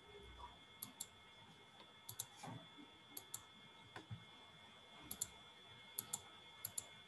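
Faint computer mouse clicks, mostly in quick pairs of two sharp clicks, one pair roughly every second, over a low steady hiss.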